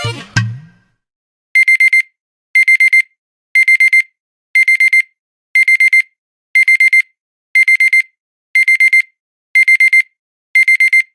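LG phone alarm tone in the style of a digital alarm clock: a group of four quick high-pitched beeps repeated about once a second, ten times.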